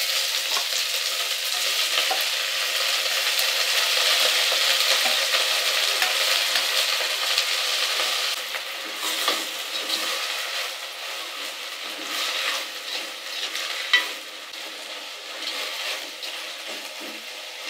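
Damp chopped gandh prasarini (Paederia foetida) leaves frying in hot mustard oil in a clay pot, sizzling hard at first and settling lower after about eight seconds. The greens are being stirred through the oil, with scattered knocks against the pot.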